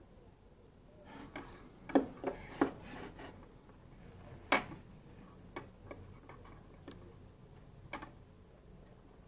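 Light clicks, taps and rubbing as a circuit board, solder wire and a soldering iron are handled and shifted on a tabletop. There is a cluster of sharp taps about two seconds in, one more sharp tap a couple of seconds later, and then a few fainter clicks.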